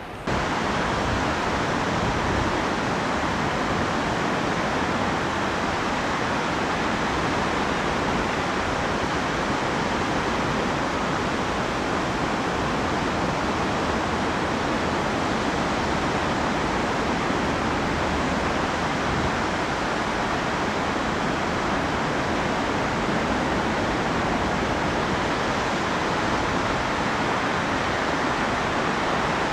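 Steady, even rush of ocean surf that starts abruptly a fraction of a second in and holds at one level throughout.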